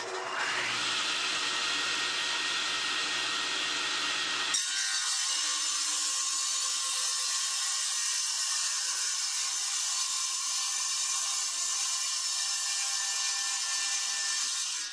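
Delta contractor-style table saw starting up with a rising whine, then running steadily through a test cut in a 2x4; the sound changes abruptly about four and a half seconds in and cuts off near the end. The blade is dull: the owner says it definitely needs replacing.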